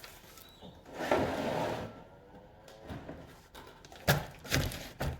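Plastic oil drain pan being slid and scraped into place over the ground, with a few sharp knocks near the end as it is handled.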